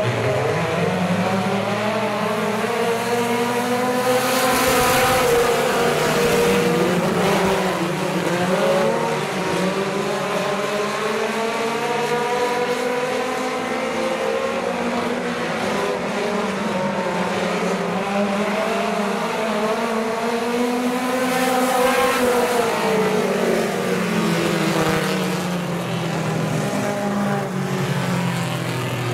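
A pack of four-cylinder mini-stock race cars running on a dirt oval, several engines together. Their pitch rises along the straights and falls as they lift for the turns, in two broad swells about four seconds in and again past twenty seconds.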